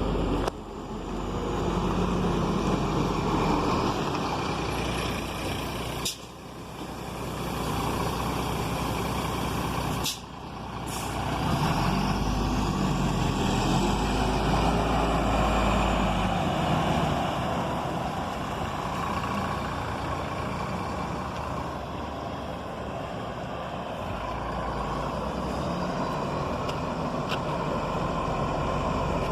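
Mercedes-Benz O500 R coach's diesel engine pulling under load, with the sound dropping briefly for gear changes about six and ten seconds in, then building again.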